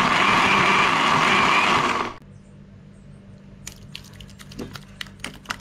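Countertop electric blender running on a thick, wet seasoning of hot peppers, scallion, onion, garlic and ginger, with a wavering motor whine; it cuts off suddenly about two seconds in. After that come scattered light clicks and splats as the blended paste is poured from the plastic jug into a stainless steel bowl.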